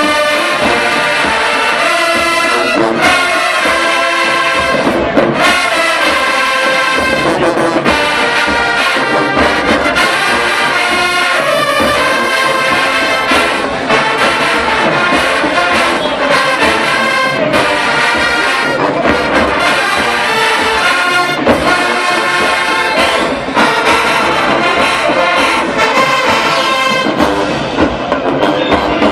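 HBCU marching band brass section playing a song loudly, with full sustained chords and a moving melody.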